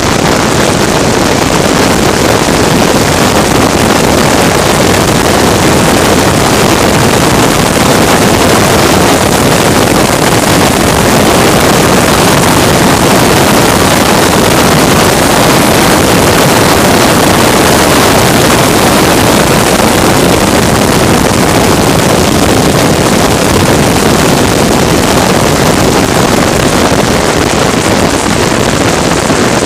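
Loud, steady rushing roar of wind on the microphone mixed with vehicle noise. It holds an even level with no rise or fall in pitch.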